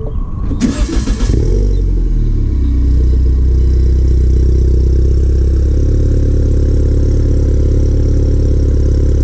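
R56 Mini Cooper S's 1.6-litre turbocharged four-cylinder starting up through a newly fitted catless downpipe. It catches at once, runs unevenly for about two seconds, then settles into a steady, loud idle, heard at the twin tailpipes.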